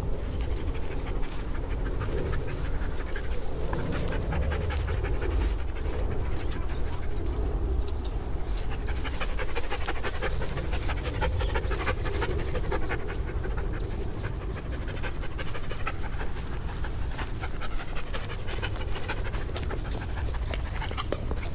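Black standard poodle panting steadily, close by.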